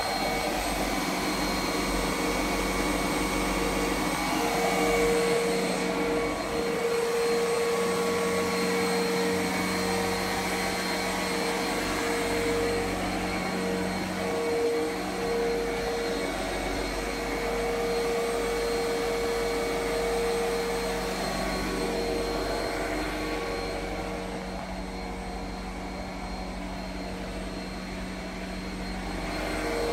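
A motor running steadily, a constant hum over rushing air, that grows somewhat fainter for a few seconds near the end.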